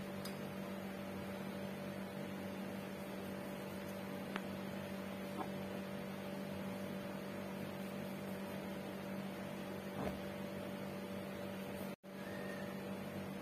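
A steady electrical hum runs throughout, with a few faint, light taps of a kitchen knife against a plastic cutting board as a soft loaf of bread is sliced. About twelve seconds in, the sound drops out for a split second.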